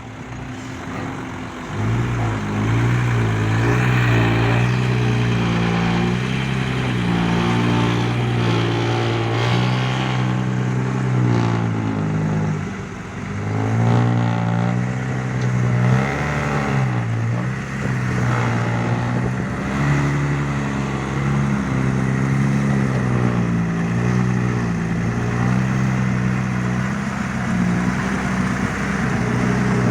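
Loaded dump truck's diesel engine pulling away under heavy load, its note rising and falling again and again as it revs and shifts.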